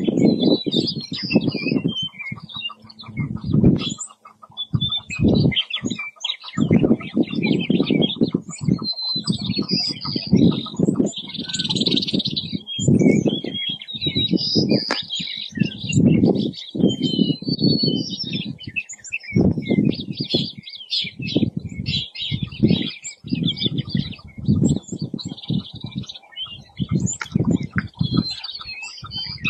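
Chukar partridges calling: runs of rattling, clucking notes about a second long, repeated with short gaps, and high chirping notes over them throughout.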